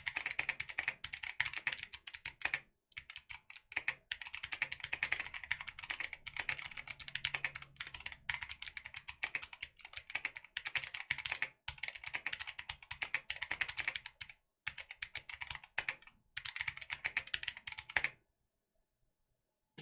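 Fast typing on a mechanical keyboard with Kailh Box Jade clicky switches and ABS keycaps: a dense stream of sharp clicks broken by short pauses, stopping about two seconds before the end.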